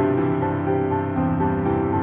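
Background music: a gentle piano melody with sustained notes.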